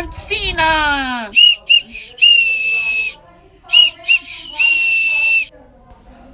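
Small plastic keychain whistles blown through the nostrils, giving a shrill single-pitched toot-toot-tooooot, two short blasts and a long one, played twice.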